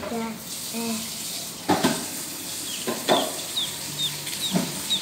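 Newly hatched ducklings peeping: short, high chirps that fall in pitch, repeated several times in the second half. A few sharp knocks or taps sound among them.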